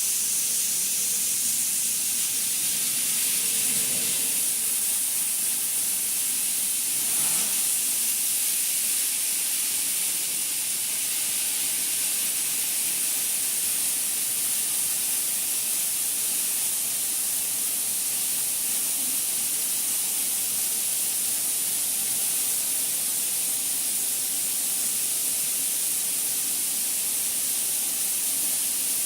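Steady, high-pitched hiss of a CNC cleaning machine at work, running without a break.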